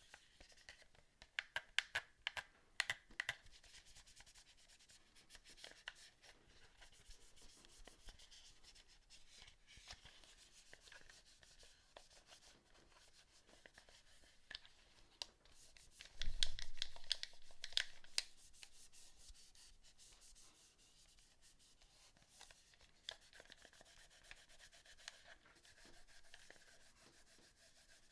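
Hands working on a PS4 controller: small sharp clicks of plastic and scraping, rubbing sounds. There is a cluster of clicks in the first few seconds and a louder knock and rustle about sixteen seconds in.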